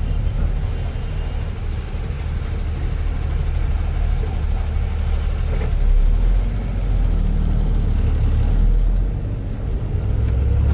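Heavy truck's diesel engine heard from inside the cab as it pulls away and gains speed: a low, steady drone that grows louder about six seconds in and again a little later.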